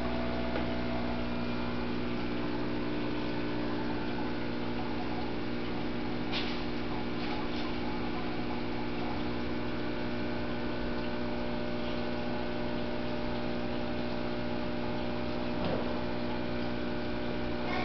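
Steady mechanical hum with running water from an aquarium's sump and return pump, holding level throughout with a couple of faint ticks.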